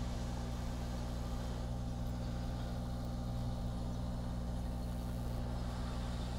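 Steady low hum with a faint hiss, the unexplained static noise on the recording, unchanged as the hot air nozzle is lifted away.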